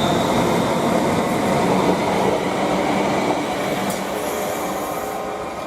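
Class 350 electric multiple unit running past on the rails, with steady wheel-and-rail noise and a few faint steady tones; the sound slowly falls away over the last couple of seconds as the rear unit goes by.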